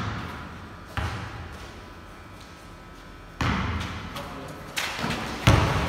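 Basketball bouncing on a concrete floor: four separate thuds, each with a long echo dying away in the large bare hall.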